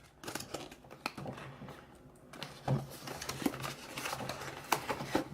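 Scattered small clicks and rustles, with a firmer knock near the middle, as a trading card starter deck's plastic case and packaging are handled.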